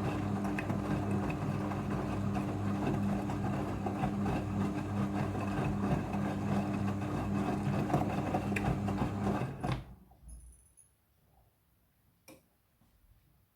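Midea front-loading washing machine running with a steady, loud mechanical hum, cutting off suddenly about ten seconds in, followed by near silence and a single click.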